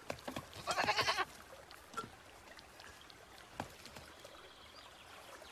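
A single short, quavering bleat from a farm animal about a second in, followed by a few soft knocks.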